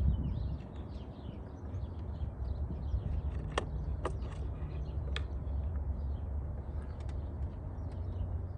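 Audi/VW 2.0T turbocharged four-cylinder engine running with rod knock from a failed connecting-rod bearing, a steady low rumble with knocking.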